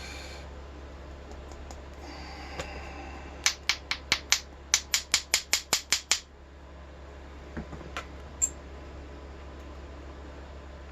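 A quick run of about a dozen sharp, small metal clicks, some five a second, then a few single clicks later: springs being shaken out of the pin chambers of a rim cylinder lock.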